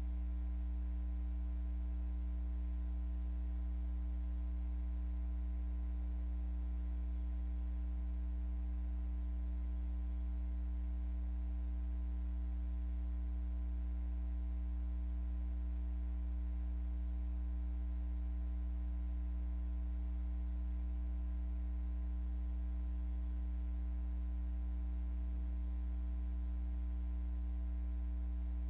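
Steady electrical mains hum: an unchanging low drone near 60 Hz with a ladder of fainter, higher overtones.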